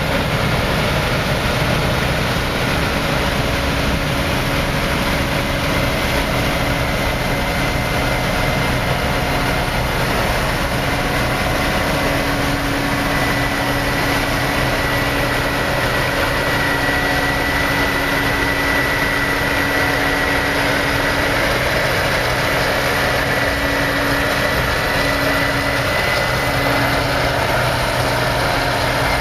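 Combine harvester running steadily while harvesting wheat: a constant engine drone with a steady high whine over it.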